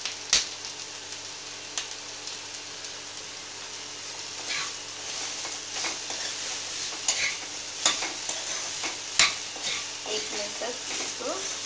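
Chopped capsicum and spring onion sizzling in a hot non-stick kadai while being stir-fried, with a spatula scraping and knocking against the pan in several sharp clicks.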